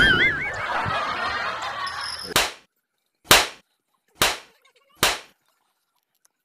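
Comedy sound effects: a wobbling boing tone in the first moment, a couple of seconds of noisy sound, then four sharp smacks about a second apart.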